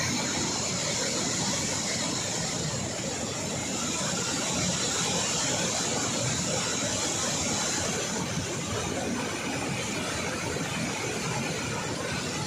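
Water rushing out of the opened spillway gates of a dam in a steady, unbroken roar. A thin high whine sits over it and stops about eight seconds in.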